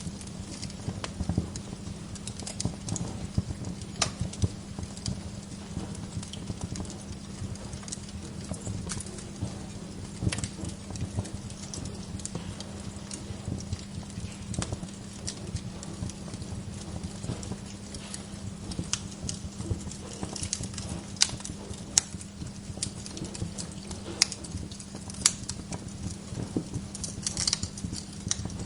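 Wood fire in a fireplace crackling steadily over a low rumble, with sharp pops every few seconds, several coming close together near the end.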